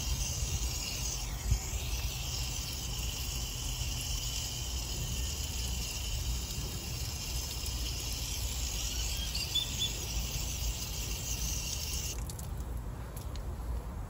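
Water running from an outdoor hose bib over a hose connector held under the stream to rinse it: a steady hiss that cuts off suddenly about twelve seconds in when the bib is shut off.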